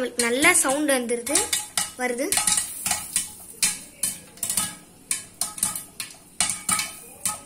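Popcorn kernels popping inside a covered aluminium pressure cooker, in quick irregular clicks and knocks against the metal. During the first two seconds a wavering, voice-like pitched sound is also heard.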